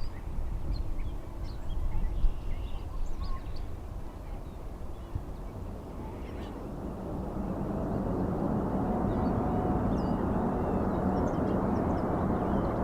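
Gusty wind rumble with a few short bird chirps, then from about halfway through the steady rush of a jet airliner's engines growing louder and holding.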